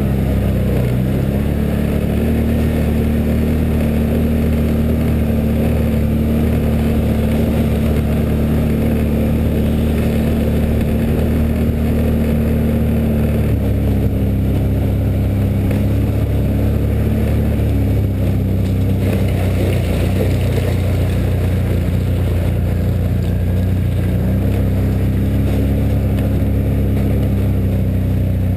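2013 Can-Am ATV engine running at trail speed, mostly steady, with its pitch stepping down about halfway through and rising and falling a few more times as the throttle changes.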